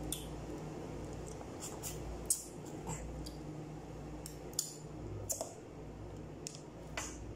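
Close-up mukbang eating sounds: wet lip smacks, sucking and chewing on a gelatinous goat trotter from paya curry, about ten sharp irregular smacks over a steady low hum.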